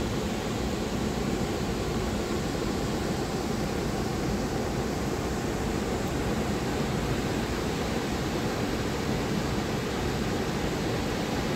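Large waterfall: a steady, unchanging rush of falling water.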